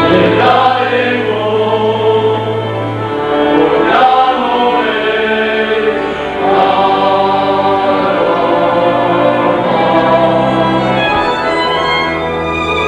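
A group of men singing a Slovak folk song together in long held notes, accompanied by a folk string band of fiddles over a bass line that changes note every few seconds.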